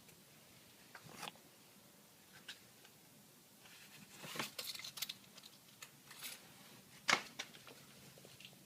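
Faint clicks and scraping of a screwdriver working a screw loose in a car door's inner frame, with a sharper click about seven seconds in.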